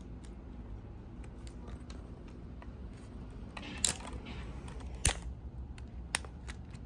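Sharp plastic clicks and knocks from handling a fuel pump module as the pump is worked out of its basket: one click about four seconds in, a louder one about a second later, and a faint one near the end.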